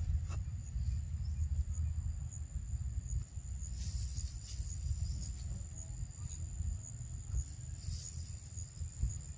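An insect's steady high-pitched trill, with small regular pulses, over a low rumble on the microphone and a few faint clicks.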